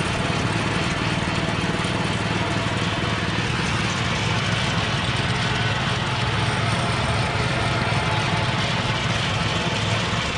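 Small Honda four-stroke engine running steadily, belt-driving a spinning drum of stone-cutting discs, with a steady hiss over the engine note.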